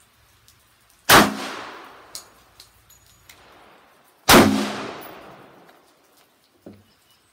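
Two handgun shots about three seconds apart, each with a long echoing tail that fades over about a second and a half.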